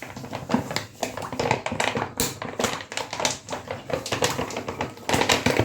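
Omo washing powder being tipped into a single-tub washing machine: rustling of the detergent packet and a run of quick, irregular light clicks and patters, louder near the end.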